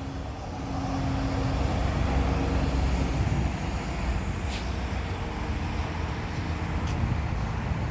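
Diesel engine of a John Deere 750K LGP crawler dozer running steadily, growing louder over the first two seconds.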